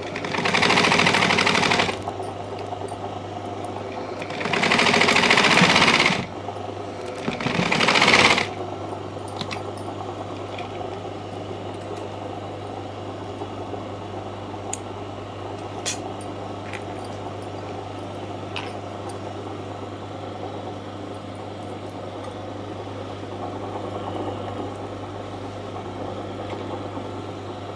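Sewing machine stitching in three short runs within the first eight seconds or so, the first two about a second and a half each and the third shorter, as thread piping is sewn onto a frock's neckline. After that only a low steady hum with a few faint clicks.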